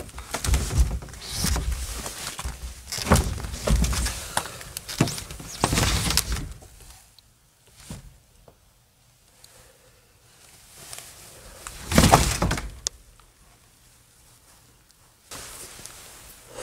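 Footsteps and knocking thumps on a hard floor for the first six seconds or so. Then a quiet stretch, then one loud thunk about twelve seconds in.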